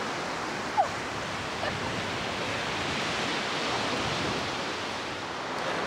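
Steady rushing noise of sea surf with no speech, and a brief sound just under a second in.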